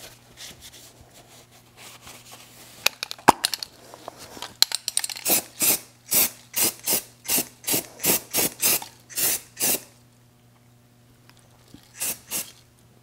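Rag wiping dye penetrant off a steel truck frame: light rubbing with a few clicks, then a run of about a dozen quick, even wiping strokes. Near the end, two short sprays from an aerosol can of crack-check developer.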